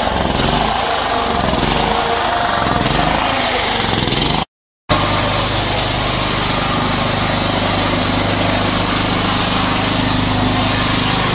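Portable generator's small engine running steadily. The sound cuts out for about half a second some four seconds in, then the engine runs on at an even pitch.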